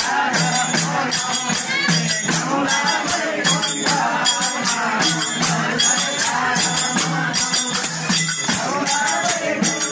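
Devotional song with singing over a quick, even percussion beat of jingling, shaken or struck hand percussion.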